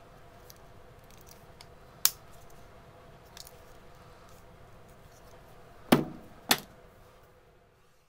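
Small Swiss Army knife being handled: a sharp click about two seconds in, then two louder snaps about half a second apart later on, over a faint steady hum.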